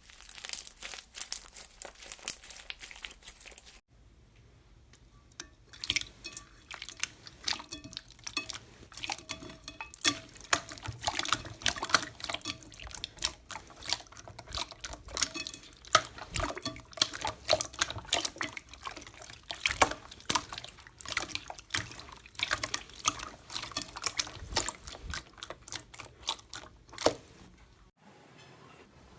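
Slime being squeezed and stretched by hand, making many quick wet sticky clicks and pops. For the first few seconds there is instead a dense crinkly crackle, before a cut.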